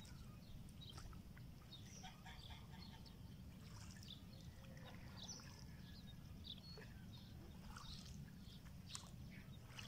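Quiet pond-side ambience: faint, scattered bird chirps over a low, steady rumble.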